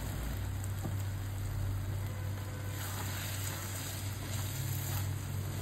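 Paneer and pea masala gravy sizzling gently in the pan, with a steady low hum underneath and a faint click or two.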